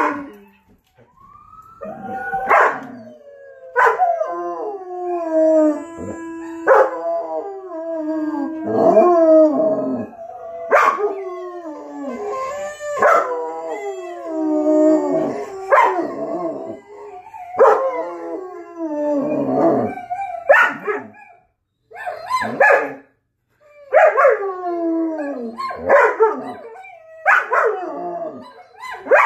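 A young German Shepherd howling over and over, each howl starting sharply and sliding down in pitch, with short barks mixed in and a pause of about two seconds around two-thirds of the way through.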